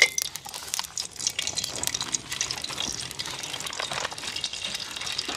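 Coconut oil heating in a pot, a steady sizzle with many small crackling pops.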